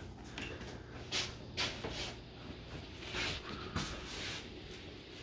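Light kitchen handling sounds: a few short, soft knocks and scrapes of utensils and dishes on a counter.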